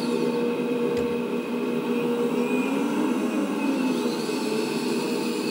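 Steady electric hydraulic pump whine and simulated diesel-engine sound from an RC scale Liebherr 996 hydraulic excavator model, with the pitch swelling up and down a little as the arm and slewing are worked. A small click about a second in.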